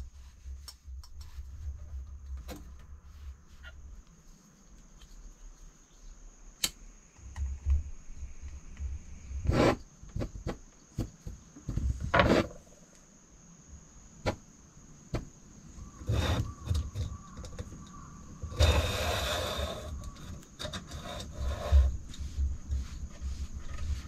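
Clicks, scrapes and knocks of a gas canister being screwed onto a small backpacking canister stove and the stove being handled, with one hiss lasting about a second roughly three-quarters of the way through. A low rumble comes and goes underneath.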